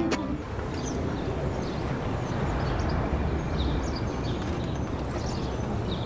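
Outdoor ambience: a steady low rumble with faint, short high chirps scattered through it.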